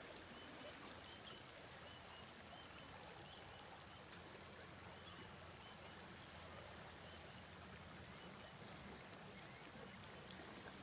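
Near silence: the faint, steady rush of the flowing river.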